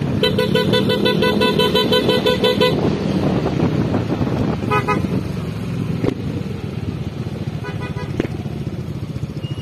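Motorcycle horn tooted in a rapid string of short beeps for about two and a half seconds, then two shorter bursts of beeps, about five and eight seconds in. Motorcycle engines run steadily underneath.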